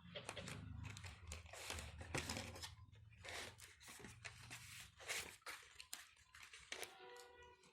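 Doll packaging being handled and torn open: irregular rustling, crinkling and tearing. A short pitched squeak sounds near the end.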